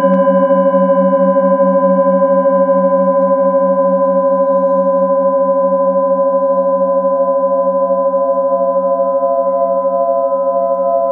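Metal singing bowls ringing after a strike at the very start: several steady tones, the lower ones wavering in slow beats and slowly fading. From about halfway, one higher tone swells and pulses as the hand-held bowl is circled at its rim with a mallet.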